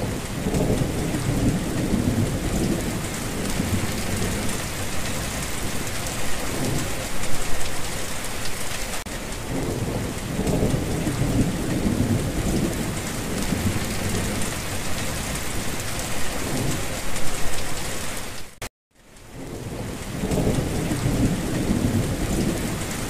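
Heavy, steady rain with low rolling thunder rumbles that swell up several times. The sound cuts out for a moment near the end.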